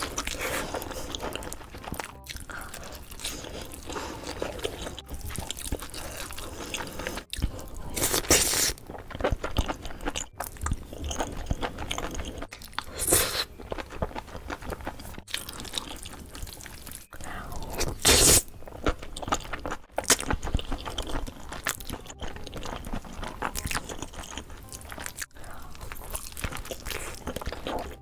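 Close-miked eating: continuous crunching, biting and chewing of food. Louder crunchy bites come about 8, 13 and 18 seconds in.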